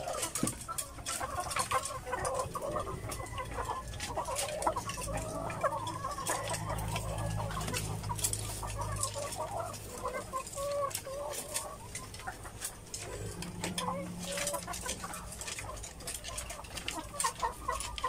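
A flock of caged laying hens clucking continuously, many birds calling over one another, with scattered light clicks and taps among them.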